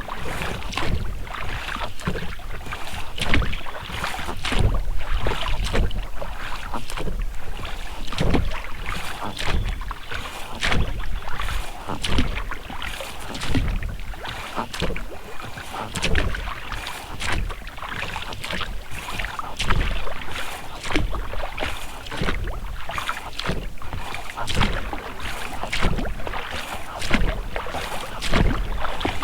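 Oars of an inflatable rowing boat working in rubber rowlocks, with repeated strokes about every one to two seconds and the splash of the blades in the water, over a steady wash of water and some wind on the microphone.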